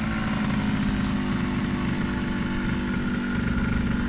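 Yamaha FS1-E's 49cc two-stroke single-cylinder engine idling steadily.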